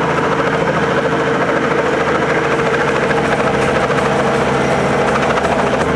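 Robinson R44 Raven helicopter flying low overhead: the steady drone of its piston engine under a fast, even chop of the rotor blades.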